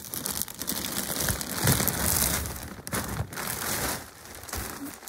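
Clear plastic bags of jigsaw puzzle pieces crinkling and rustling as they are handled and lifted, with the loose pieces shifting inside.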